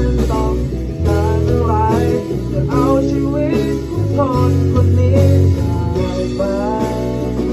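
Rock band playing live: a young man singing the melody over electric guitars, bass guitar and drum kit.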